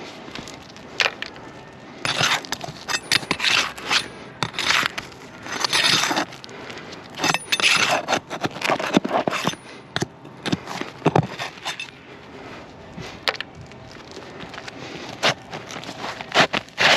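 Asphalt roof shingle being pried loose with a hand tool: irregular scraping, crackling and clicking as the nails are worked out and the brittle shingle is pulled free of its seal.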